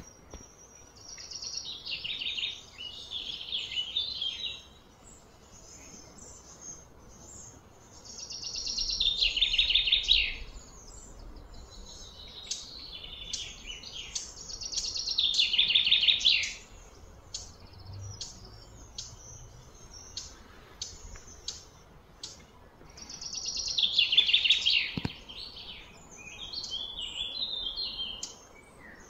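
High-pitched pulsing calls of wild animals outdoors: a buzzing call that swells for two to three seconds while sliding down in pitch, heard four times, with short high chirps in between.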